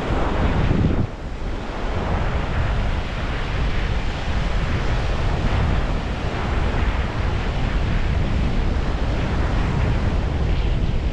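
Strong wind buffeting the microphone: a loud, steady rushing rumble.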